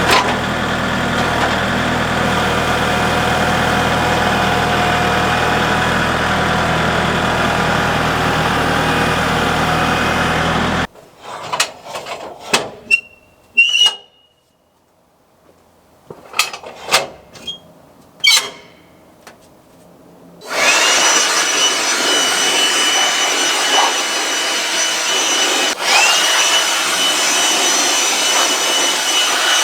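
Sawmill engine running steadily, then cut off abruptly; a scatter of knocks, clanks and short squeaks follows, and from about twenty seconds in the mill runs again as a loud steady noise with a thin high whine, typical of the saw working through the cedar log.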